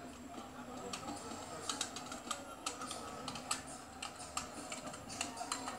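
Irregular light clicks and taps, two or three a second, over a low steady background murmur and hiss.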